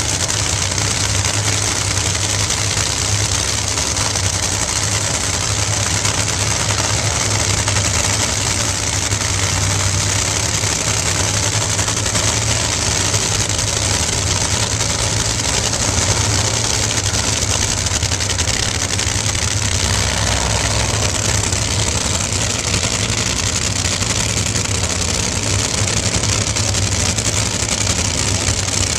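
Supercharged nitromethane Funny Car engines idling at the starting line: a loud, steady, rough running without revving.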